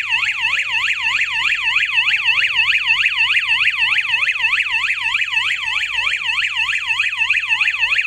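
Wireless Wi-Fi strobe siren of a Smart Life (Tuya) security alarm kit sounding its alarm: a loud, fast warbling wail sweeping up and down in pitch about four times a second. It has been triggered by opening the door sensor while the system is armed.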